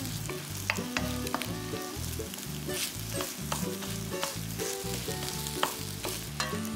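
Egg sizzling in hot oil in a stainless steel wok while a wooden spatula scrapes and knocks against the pan several times, scrambling the egg and breaking it into pieces. Soft background music with low notes plays underneath.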